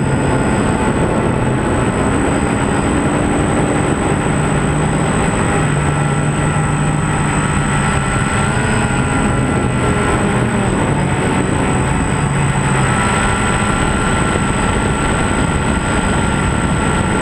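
The motors and propellers of the aircraft carrying the camera, running steadily, with wind noise. Their pitch wavers a little now and then, over a constant high whine.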